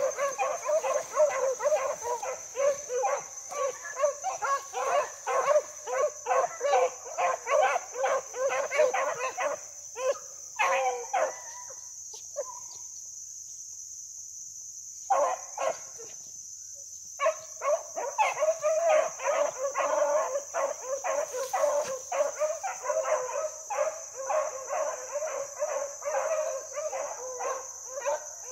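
A dog barking in fast, steady runs of about three barks a second, with a break of a few seconds near the middle before it starts up again.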